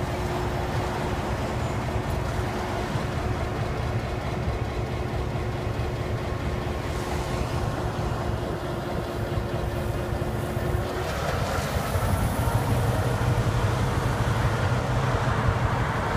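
EMD GP9 diesel locomotives running while switching cars, a steady low rumble with a held tone; about eleven seconds in the engine sound grows louder and its pitch changes.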